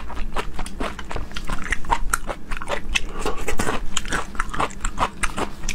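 Close-miked chewing of raw scallop sashimi: quick, irregular wet clicks from the mouth, several a second.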